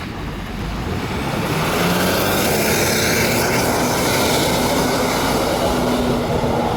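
A large tour bus driving past close by: engine and tyre noise that builds about a second in and stays loud, with a low steady engine drone underneath.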